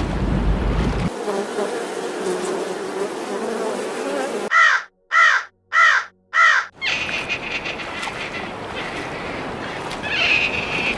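A crow cawing four times in a row, each call short and a little over half a second apart, between stretches of hissing background noise.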